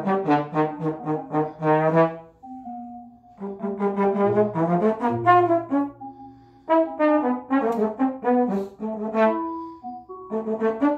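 Trombone improvising in fast clusters of short notes, broken by brief pauses. About five seconds in it holds a low note for a moment.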